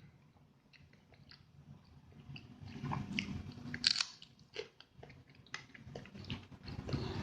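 Close-up chewing and mouth sounds of someone eating rawon with half-boiled eggs, a run of irregular wet clicks and crackles that gets louder after about two seconds, with the sharpest click about four seconds in.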